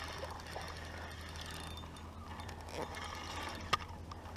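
Fishing reel being cranked, its gears clicking fast and steadily as a fish is reeled in. There is one sharp click near the end.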